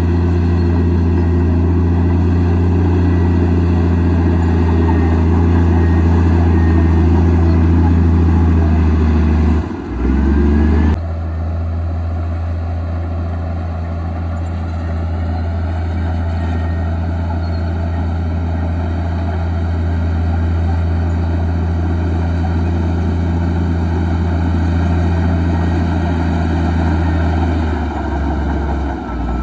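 Komatsu D58E bulldozer's diesel engine running steadily under load, its pitch dipping and rising again about ten seconds in and once more near the end.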